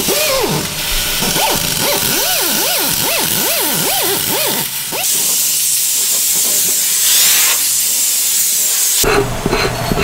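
Compressed air hissing from an air tool worked inside a tire, with a wavering lower tone through the first few seconds. About five seconds in the lower part drops away, leaving a thinner, high hiss. About nine seconds in the sound changes abruptly to light tapping and scraping.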